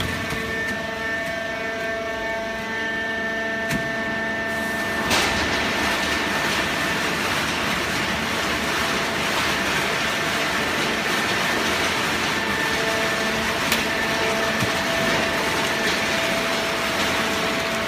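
Horizontal hydraulic baling press running: a steady machine hum with several held tones, joined about five seconds in by a louder rushing noise that carries on.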